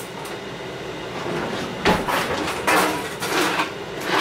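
A utensil stirring dry seasoned flour in a bowl, scraping against the bowl in several strokes in the second half.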